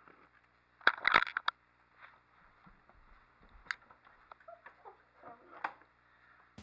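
Handling noise from the recording phone and plastic toys being moved: a quick cluster of sharp clicks and knocks about a second in, then a few scattered light taps.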